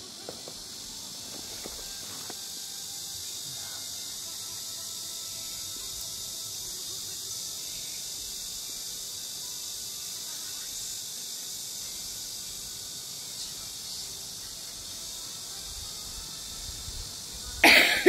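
Steady, high-pitched drone of a summer insect chorus. Near the end a person coughs loudly, twice.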